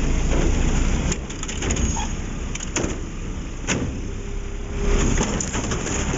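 McNeilus front-loader garbage truck running while its Curotto-Can arm grabs a plastic Poly Kart cart, lifts it and tips it over the can. Steady heavy engine and machinery noise with several sharp clanks and knocks as the cart is gripped, lifted and dumped, and a short steady whine about four seconds in.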